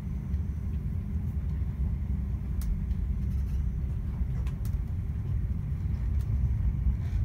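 Steady low rumble of a passenger train running at speed, heard from inside the carriage, with a few faint ticks.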